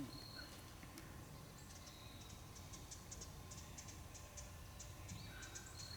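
Quiet outdoor background with faint, scattered bird chirps and small high ticks.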